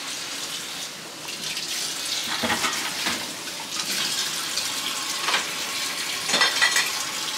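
Kitchen tap running into a sink, with a few short knocks from dishes.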